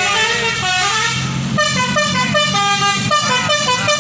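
Tour bus's basuri telolet horn playing a melody of stepped notes, quicker from about halfway in, over the low rumble of bus engines.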